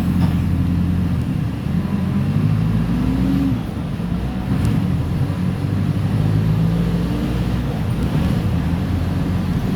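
Mercedes-Benz OF-1418 bus's four-cylinder turbodiesel engine pulling under way, its pitch climbing. About three and a half seconds in, the sound briefly drops in level and pitch, then the engine pulls again.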